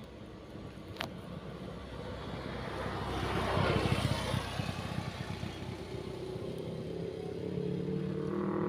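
Road traffic: a vehicle passes close by with a swell of tyre and engine noise that peaks about four seconds in and fades. Near the end a motorcycle engine's hum grows louder as it approaches.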